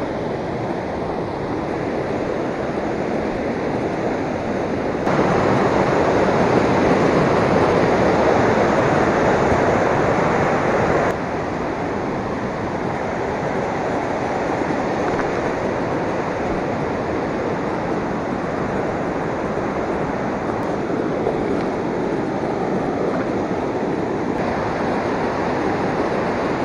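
Steady rush of a small stream cascading over rock, louder for about six seconds near the start.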